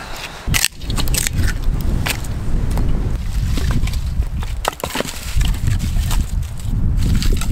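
Sticks of firewood knocking and clattering as they are set onto a woodpile, a sharp knock every second or so, over a loud steady low rumble.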